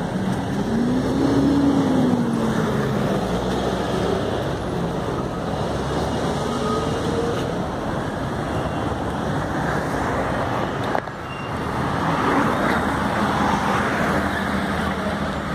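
Street traffic: car and van engines running and passing, with one engine rising and then falling in pitch in the first few seconds.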